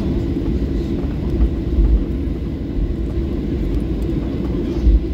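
Cabin noise of a Ryanair Boeing 737 taxiing: a steady low rumble from the jet engines and the rolling airframe, with a few soft low thumps about one and a half seconds in and again near the end.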